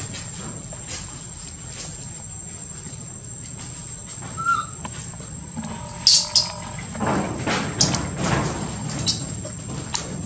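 Baby monkey calling: a short squeak about four seconds in, then a louder shrill cry about six seconds in. After that comes rustling and scuffling as an adult monkey moves in close, over a steady high whine.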